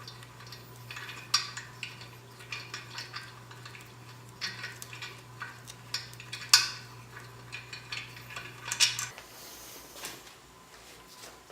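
Light metallic taps and clinks at an irregular pace as main bearing parts are tapped into place in a Toyota 3S-GE engine block, the loudest tap a little past halfway.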